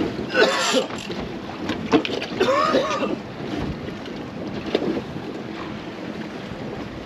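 Wind buffeting the microphone and sea rushing along the hull of a small fishing boat at sea. Two short wordless shouts come through, about half a second in and again around three seconds in.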